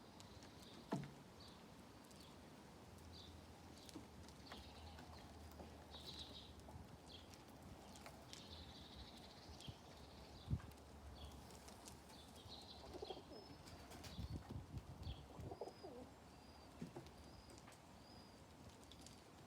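Faint pigeons cooing now and then, with short high chirps and a few soft knocks, one a little louder about ten seconds in.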